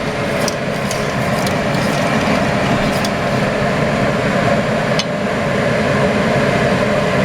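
Steady mechanical whir with a low hum, broken by a few light clicks.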